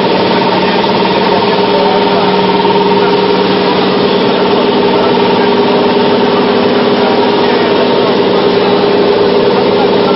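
PLA drinking-straw extrusion line running: a steady machine hum with several constant tones over a dense rushing noise, unchanging throughout.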